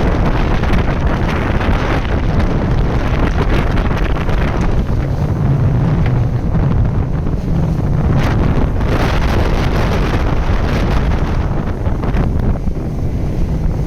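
Wind buffeting the microphone on a boat, a steady heavy rumble with water noise beneath it.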